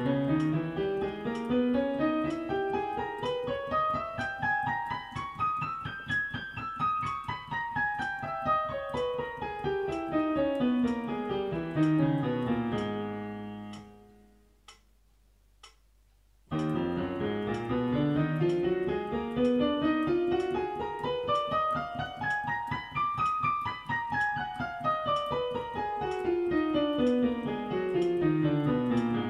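Piano playing two scales hands together, each running steadily up and back down and ending on a held note, with a pause of about three seconds between them. The scales are harmonic minor scales played at grade 5 exam speed.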